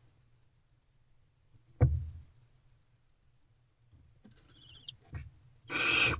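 Barn owls in a nest box: a thump about two seconds in, then a short, thin rasping call, then a half-second hissing screech near the end.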